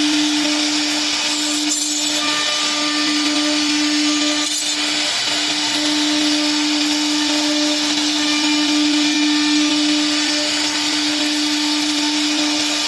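3-axis CNC router spindle running at a steady high speed while cutting wood, a constant whine over a dense cutting hiss. The whine drops out for a moment about five seconds in.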